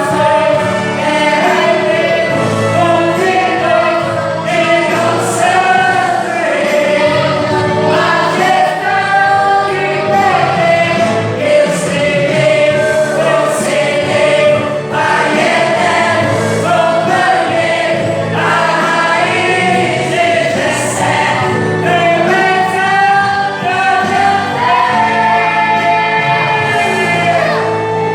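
Church praise group singing a gospel worship song, several voices together like a choir, with instrumental accompaniment.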